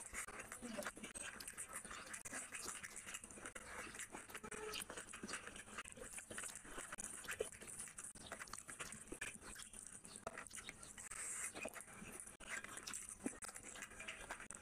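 Close-up eating sounds: wet chewing and lip smacking, and fingers squishing and mixing rice with curry on a plate. Many small soft clicks and crackles throughout.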